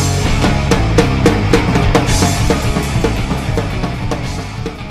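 Rock background music with a driving drum-kit beat, growing quieter toward the end as it fades out.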